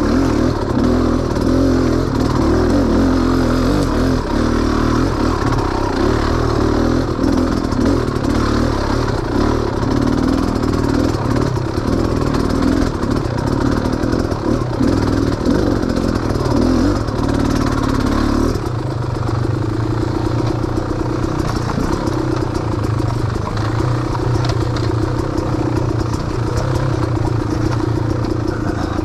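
Engine of an off-road vehicle running as it works over a rough, rooty and rutted trail, with clatter from the bumps. The engine note changes and drops about two-thirds of the way through.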